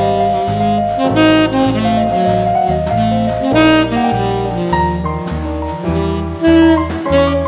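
Background jazz music: a lead melody over low bass notes that change about twice a second, with light cymbal ticks.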